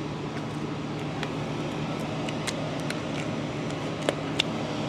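Steady low machine hum, with a few light clicks and snaps of a work glove being pulled on, the last two close together near the end.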